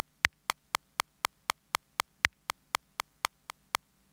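Studio One 4's software metronome clicking eighth notes at 120 BPM in 4/4: an accented beat-one click every two seconds, beat clicks on each half second, and offbeat clicks between them. In the second half the offbeat clicks get quieter and then drop out as the offbeat level is turned down.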